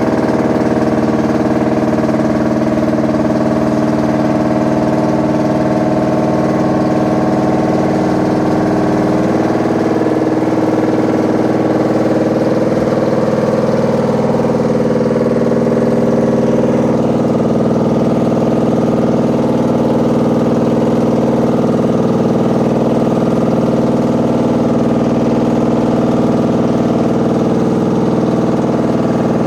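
Washing machine running with a loud, steady, machine-like drone made of several steady tones, a noise that sounds as if there's a load of bricks in it.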